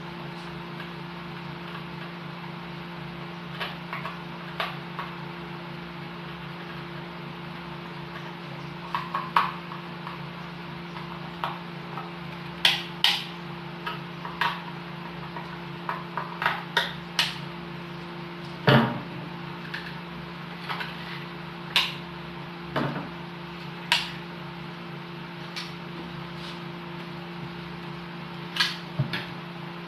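Scattered clicks, taps and a few sharper knocks of hand tools and plastic outlet parts being handled and fastened while a power outlet is mounted, over a steady low electrical hum.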